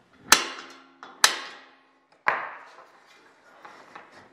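Two sharp hammer blows on a center punch, marking a hole location on a steel hinge strap. The second blow rings briefly. A duller knock follows about two seconds in.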